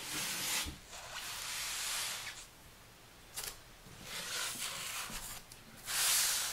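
Cardboard packaging being opened and handled: bursts of rustling and scraping, the loudest near the end, with a sharp click about three and a half seconds in.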